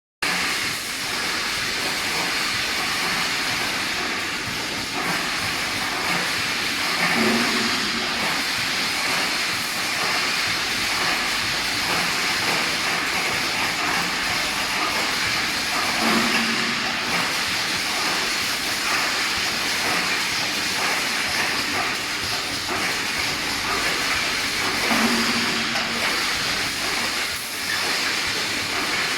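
Automatic wire mesh welding machine running on coil wire: a steady hissing clatter, with a brief low hum swelling about every nine seconds.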